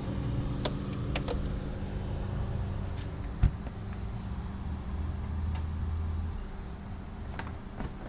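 Hoshizaki RFT-120PTC under-counter freezer-refrigerator running with a steady low hum of its cooling machinery. A few light clicks and one sharp thump about three and a half seconds in, like a door being shut; the deepest part of the hum drops away about six seconds in, and more clicks come near the end as the door handle is taken.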